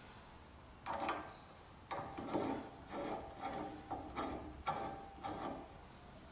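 Greased steel clamp screw of an antique vegetable grater being turned by its wing handle into the clamp's threaded body, metal threads rasping in about eight short strokes as the handle is twisted turn by turn.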